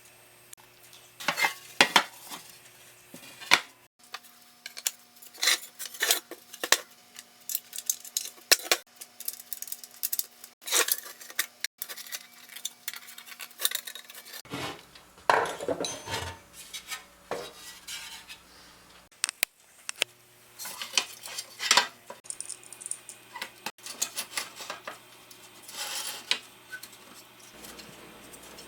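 Metal parts and hand tools clinking and tapping as a band saw is reassembled: a scattering of sharp clicks and knocks with short pauses between them.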